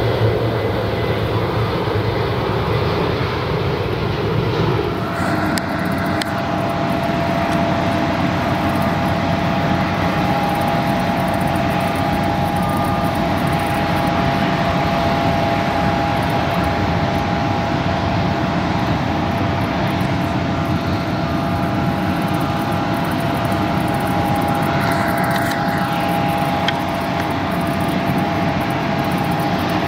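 Airbus A330-900neo's Rolls-Royce Trent 7000 jet engines running at taxi power, a steady rumble. About five seconds in the sound changes and a steady whine of two tones comes in and holds.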